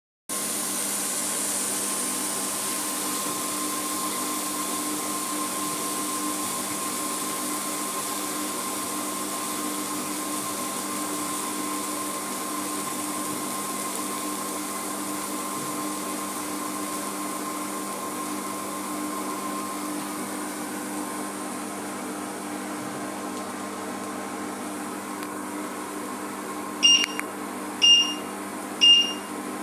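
Induction hob running with a steady fan hum and hiss while sausages sizzle in a cast-iron grill pan. Near the end the hob starts beeping, a sharp high beep about once a second.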